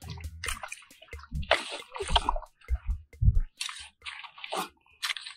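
Wet mud squelching and splashing as hands dig into a waterlogged hole in a mudflat, in irregular bursts with a few dull thuds.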